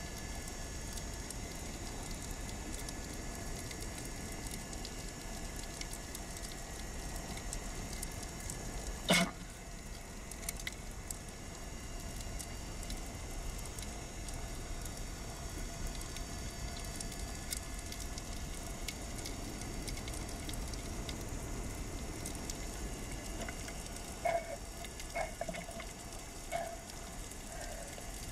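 Underwater sound with a steady crackling hiss. About nine seconds in, a single sharp crack of a speargun firing, and a few short, higher-pitched blips near the end.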